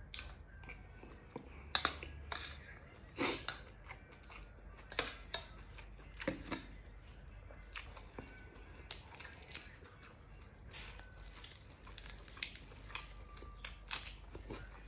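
A person chewing food close to the microphone, with crisp crunches at irregular moments, typical of biting into raw vegetables eaten with a spicy pork salad.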